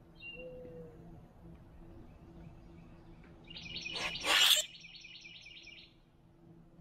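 Boat-tailed grackles calling: a short high whistle and a low falling note about half a second in. About four seconds in, one gives a loud harsh rasping call inside a quick run of repeated higher notes, which stops about two seconds later.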